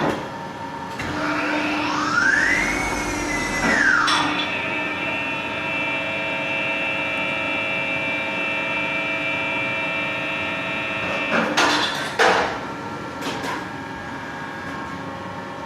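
Gildemeister NEF CT40 CNC lathe running: a whine rises in pitch, holds briefly and falls again, then a steady whine with several tones that cuts off near the end with a short noisy burst.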